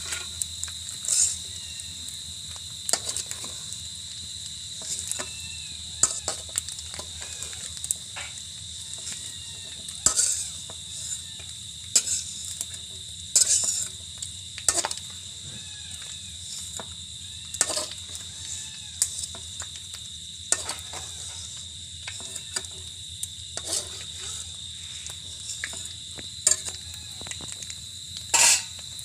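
Steady high-pitched insect drone, like crickets, with frequent irregular clicks and knocks over it.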